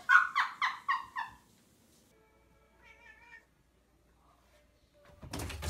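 A cat meowing in a quick run of about six short, high, falling calls, followed a second later by a fainter, wavering cry. A loud rustling noise starts near the end.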